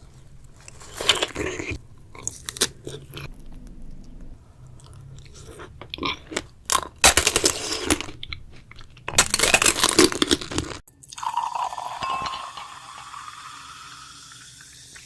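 Close-miked biting and chewing of strawberries, with crisp crunching bursts and wet clicks in several groups, the loudest in the middle. In the last few seconds it gives way to a smoother rushing noise that fades out.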